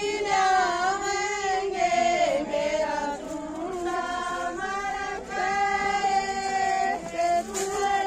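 High-pitched female singing: a slow melody in long held, wavering notes, sung by women's voices in unison.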